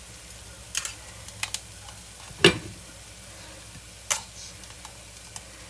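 A metal utensil clinking and knocking against a plate and dish several times while beets are served out, the loudest knock about two and a half seconds in, over a steady faint hiss.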